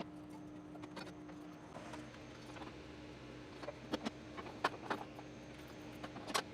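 Scattered sharp metal clicks and knocks as a metal mounting bracket and its bolts are handled and fitted around a mini-split unit, bunched together a few seconds in and again near the end, over a steady low hum.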